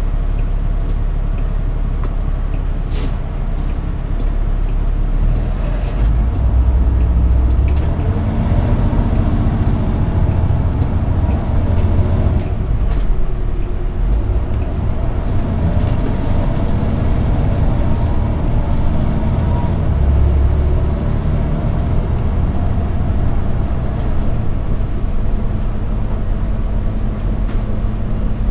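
Cummins ISX12 diesel of a commuter coach pulling away and accelerating, its low rumble growing louder about six seconds in. A thin high whistle rises and holds twice as the engine pulls, then the engine settles into steady cruising.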